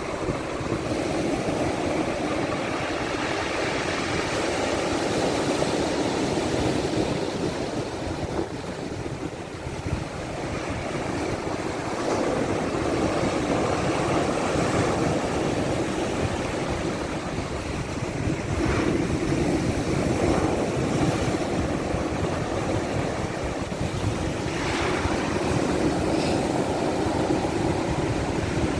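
Black Sea surf: waves breaking and washing ashore in a continuous roar that swells and eases every several seconds.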